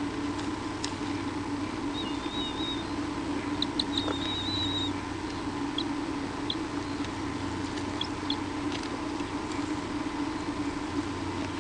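Steady electrical hum from the nest camera's microphone, with faint scratchy clicks of a bird moving on the nest. Two short, high, wavering bird chirps come about two and four seconds in.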